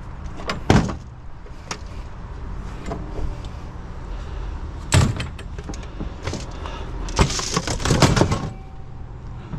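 Scattered knocks and clanks of scrap being handled and loaded into a truck. A few sharp single impacts are followed, about seven and a half seconds in, by a second of rattling clatter.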